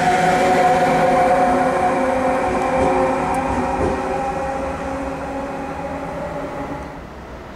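Red DB electric locomotive moving away: its motors whine at a few steady pitches over a rumble of wheels on rail, slowly fading. The sound drops off sharply near the end.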